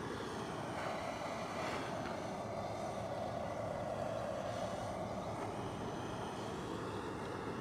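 Handheld gas torch on a screw-on canister blowing a steady jet of flame into stacked split firewood to light a campfire: an even, unbroken hiss.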